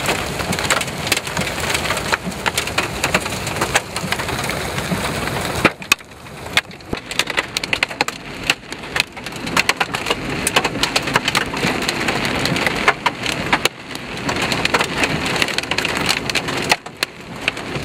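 Hail and rain pelting a vehicle's windshield and body, heard from inside the cab: a dense patter shot through with many sharp knocks of hailstones striking. The pounding dips briefly about six seconds in, then builds again.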